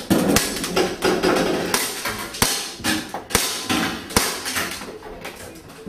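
Airsoft pistol firing a string of sharp shots, the loudest about a second apart, with lighter clacks and knocks in between.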